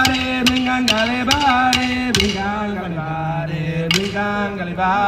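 A male voice chanting a traditional Aboriginal song in long held notes, stepping down in pitch about two seconds in and again a second later, with sharp clapstick strikes, most of them in the first two seconds.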